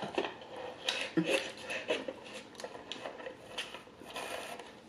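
Drinking through a straw from a large fast-food drink cup: a string of short sips, swallows and small clicks that dies away near the end.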